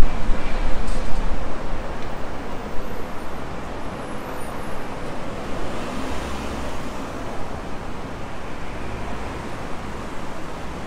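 City street ambience: road traffic passing as a steady noise, with a heavier low rumble at the start that eases off after a couple of seconds.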